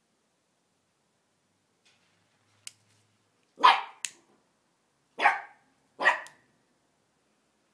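West Highland white terrier puppy barking three times, a second or so apart, at the clicking of a lighter; two short sharp clicks come just before and just after the first bark.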